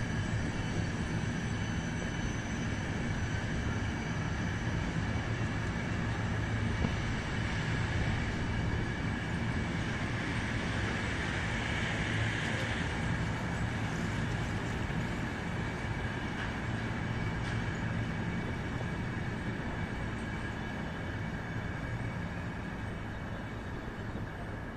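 ÖBB Nightjet sleeper train rolling slowly across a railway bridge: a steady rumble of wheels on rails with a thin high squeal. It is loudest about twelve seconds in and fades near the end as the last coaches pass.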